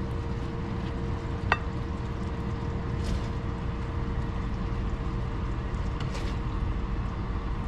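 Steady low hum, with one short, sharp clink about a second and a half in.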